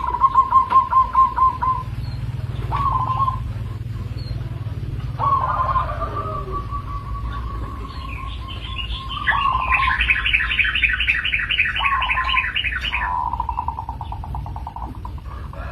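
Zebra doves cooing: repeated short phrases of rapid staccato notes, each a quick pulsed trill. Partway through, a louder, higher-pitched rapid series of chirps from another bird runs for about three and a half seconds.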